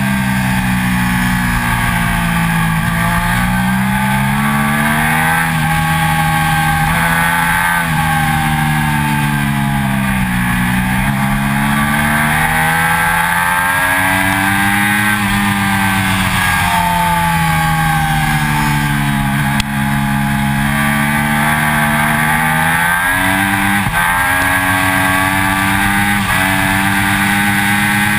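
Triumph Daytona 675's three-cylinder engine at track speed. Its pitch rises and falls repeatedly as it accelerates out of corners and backs off into them, with a sudden jump in pitch near the end. A steady rush of wind noise runs over the microphone throughout.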